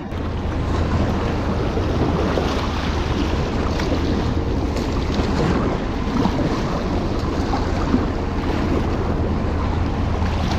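Water rushing and splashing against a sea kayak's bow as it crosses choppy wake waves, with wind noise on the microphone. The sound runs steady, with no distinct strokes.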